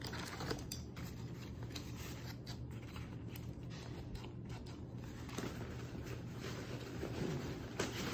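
Rustling of backpack fabric as the bag and a small attached pouch are handled, with a few light, sharp clicks from the pouch's clips. A faint steady low hum lies underneath.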